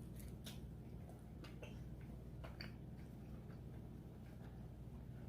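Faint, irregular clicks and ticks of someone eating at the table, over a low steady room hum.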